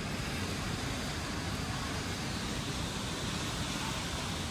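Hurricane wind rushing steadily through trees, with gusts buffeting the microphone as a low rumble.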